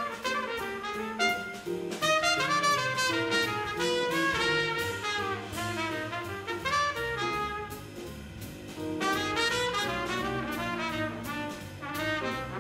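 Small jazz group playing: trumpet leading with a flowing line of notes over guitar, double bass and a drum kit with steadily ticking cymbals.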